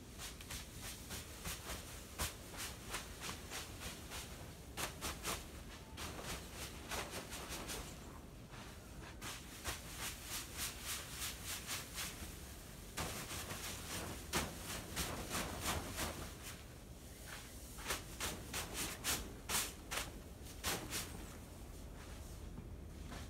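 A brush tapping the underside of a fabric portable-garage roof from inside, in quick runs of knocks with short pauses between them, knocking the snow loose so that it slides off the canvas.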